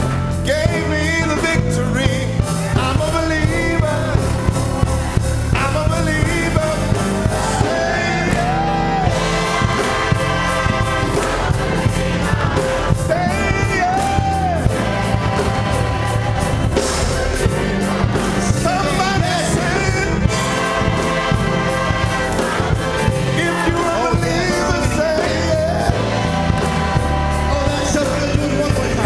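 Gospel choir singing with a band, a steady beat and bass under the voices.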